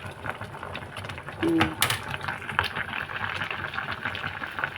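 Irregular light clicks and clatter over a steady hiss, with a brief low hum about a second and a half in.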